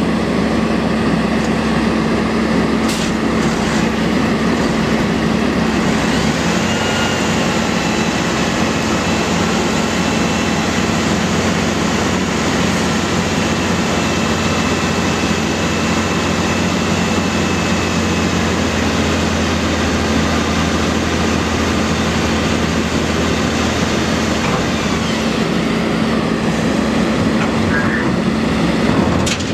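Mack dump truck's diesel engine running steadily while the hydraulic hoist raises the dump bed, with a faint high whine through the middle of the lift.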